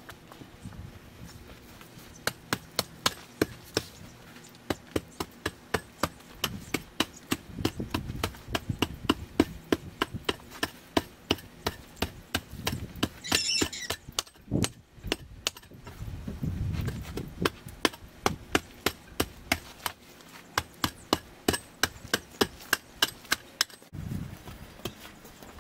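Hand digging tool chopping into hard, dry, cracked soil and sod in quick repeated strikes, about two a second, with a short pause about halfway through.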